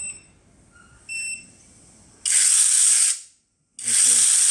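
Cordless battery chain saw switched on, with a short electronic beep, then run free twice with no load: its chain and motor make a high, hissy whir, first for under a second and then again for a couple of seconds.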